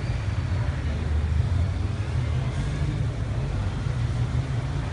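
Heavy gendarmerie vehicle engine running with a low, steady rumble, over general street noise.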